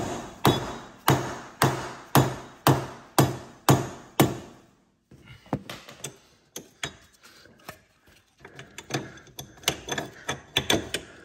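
A mallet striking the front wheel carrier of a Porsche Cayman S in a steady run of hard blows, about two a second, stopping a little over four seconds in. Lighter, irregular knocks and clicks of metal parts being handled follow.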